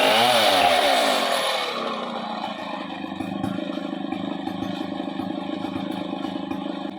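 Two-stroke chainsaw engine falling from high revs over the first couple of seconds, then idling steadily.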